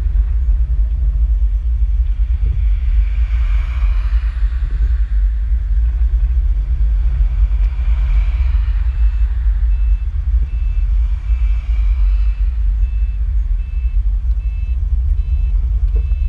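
Steady low rumble of vehicles, with swells of noise every few seconds. From about halfway a reversing beeper sounds, a little under two beeps a second at one pitch.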